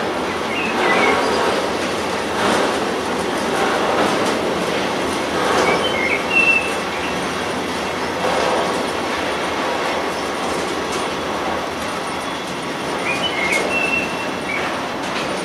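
Freight train of tank wagons rolling past, its wheels clattering over the rail joints in a repeating rhythm. Short high wheel squeals sound about half a second in, around six seconds in and near the end.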